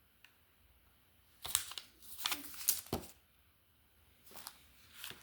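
Hands handling packaging and items from the box: quick clicks and rustling in two short spells, about a second and a half in and again near the end.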